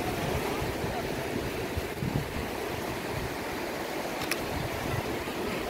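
Surf washing onto a sandy beach, with wind on the microphone. A brief sharp click about four seconds in.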